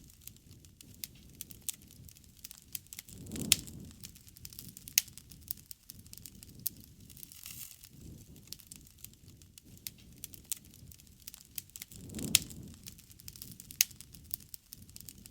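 Wood campfire crackling, with irregular sharp pops and snaps throughout. Twice, about three seconds in and again near the end, a low rushing swell builds under the loudest pops.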